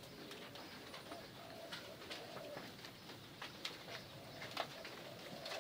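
Doves cooing again and again in short calls, with scattered sharp clicks and knocks in between, one louder knock about four and a half seconds in.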